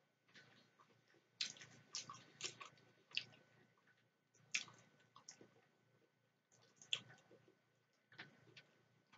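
Close-miked chewing of macaroni salad: soft wet clicks and smacks of the mouth in irregular clusters, with quiet gaps between them.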